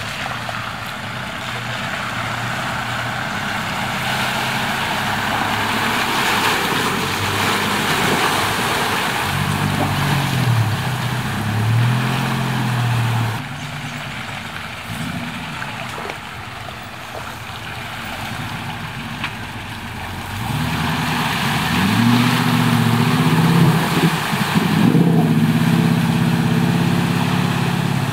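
Nissan Patrol 4WD engine revving up and falling back in pulls, twice, about ten seconds in and again about twenty-one seconds in, as it works into a water crossing. A steady rushing noise runs under it throughout.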